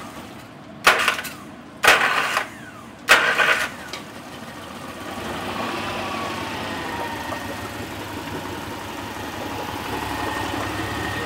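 Honda 40 three-cylinder four-stroke outboard being started: four short bursts about a second apart, then the engine catches about four seconds in and runs, churning the water in the test tank. It runs unevenly, which the mechanic puts down to a blown head gasket on the middle cylinder letting exhaust gas into the cooling system.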